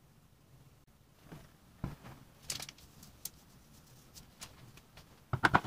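Quiet handling noises of a plastic dry-yeast sachet and fermenter: a knock about two seconds in, scratchy rustles of the packet, then a quick run of rustling taps near the end as the yeast is shaken out into the fermenter.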